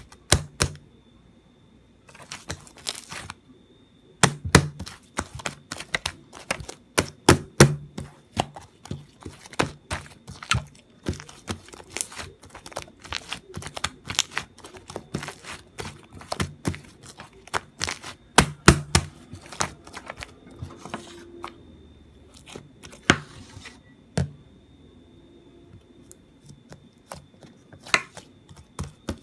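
A long run of sharp, irregular clicks and knocks, some with a dull thud under them, with a short lull a few seconds before the end.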